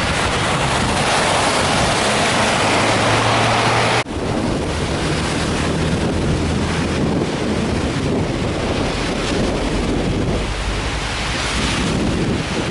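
Strong wind blowing and buffeting the microphone: a loud, steady rushing noise. A low steady hum runs under it until an abrupt cut about four seconds in, after which only the wind continues.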